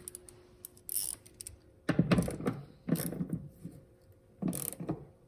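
Metal clicking and rattling in four short bursts, the loudest about two seconds in, from hand work on the pickup's door and striker.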